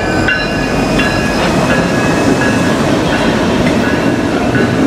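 BNSF diesel freight locomotives and double-stack intermodal container cars passing close by: a steady engine drone and the rumble and clatter of steel wheels on the rails, with short high-pitched wheel squeals coming and going several times.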